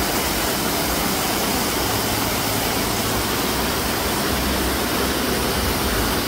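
Fountain jets spraying and splashing back into a pool: a steady, even rush of falling water.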